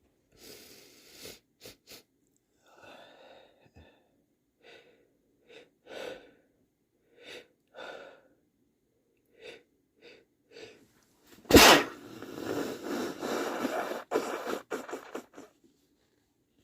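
A person sniffling with short, separate sniffs about once a second. About two-thirds of the way in comes one loud, sudden sneeze, followed by a few seconds of rough, noisy breathing.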